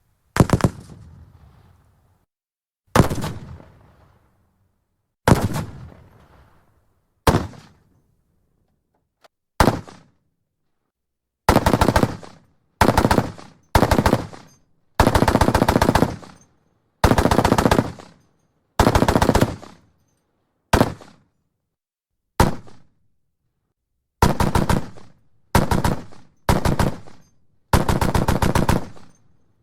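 Browning M2 .50 calibre heavy machine gun firing: five single shots about two seconds apart, each ringing out, then about a dozen short bursts of rapid fire, each one to two seconds long.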